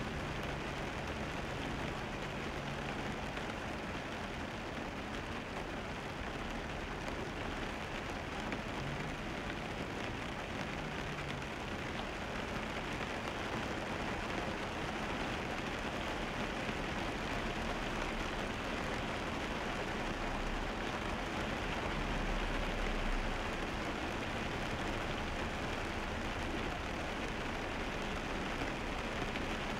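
Car driving on a wet road, heard from inside the cabin: a steady, even hiss of tyres on wet asphalt.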